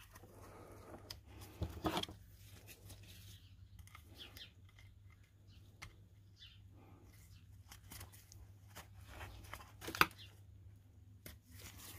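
Faint scattered clicks, taps and rustles of hands handling small parts, with two sharper clicks, about two seconds in and again near ten seconds, over a low steady hum.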